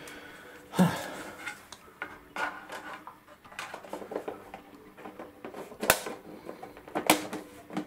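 Plastic cover of a ceiling tube light fitting being handled and pushed into place: rubbing and scraping with several sharp clicks, the sharpest about six and seven seconds in.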